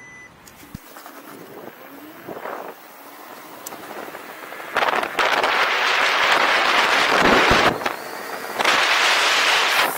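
Wind rushing over the microphone of a camera riding on an electric scooter as it speeds up, growing louder with speed. It turns loud about five seconds in, drops briefly near eight seconds, then rises again.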